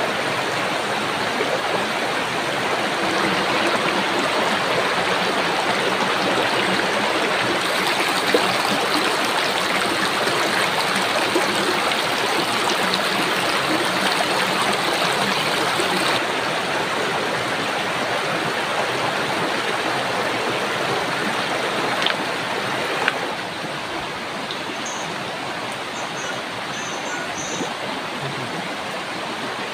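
Shallow rocky river running over stones: a steady rush of water that drops a little in level about two-thirds of the way through.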